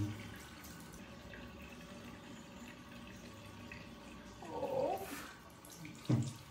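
Bathroom sink tap running steadily into the basin. A brief pitched sound rises and falls about four and a half seconds in, and a short low sound comes near the end.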